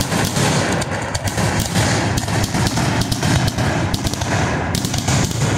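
Fireworks going off in quick succession: a dense, irregular string of sharp pops and crackles over a low rumble of bursts.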